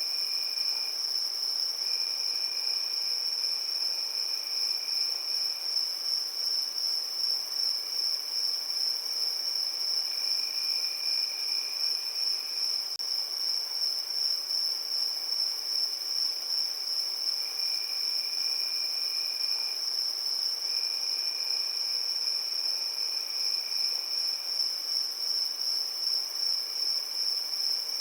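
Crickets chirping in a continuous, steady high trill, with a fainter, lower trill that comes and goes in spells of one to three seconds.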